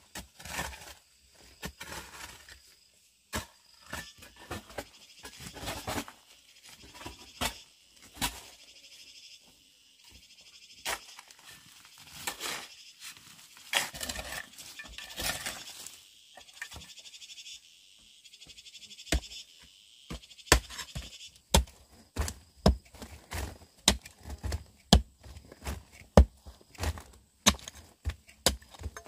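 Hand digging into a bank of hard, crumbly earth: a short-handled pick chops into the soil and loose dirt and stones are scraped and scooped out. From about twenty seconds in, the pick blows come faster and louder, about two a second.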